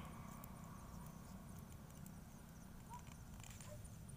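Near silence: a faint steady low hum with a few faint soft ticks.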